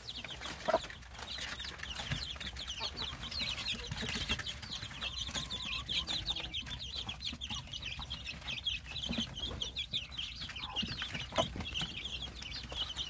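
A brood of Korean native chicken chicks peeping steadily in quick, high chirps, with scattered light taps and rustles as they peck at napa cabbage leaves on a paper-covered floor.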